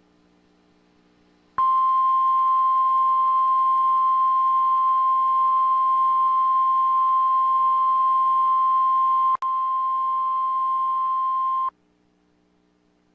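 Emergency Alert System warning tone announcing a flash flood warning: the National Weather Service's single steady 1050 Hz alarm tone. It starts suddenly about one and a half seconds in, lasts about ten seconds with a brief click and dropout near the end, then cuts off, leaving a faint low hum.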